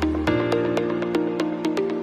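Background electronic music: sustained synthesizer chords over a bass line that changes note about a quarter second in, with a steady ticking beat of about four ticks a second.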